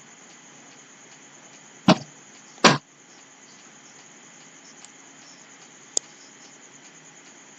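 Two loud sharp knocks a little under a second apart, then a single fainter click a few seconds later, over a steady low hiss.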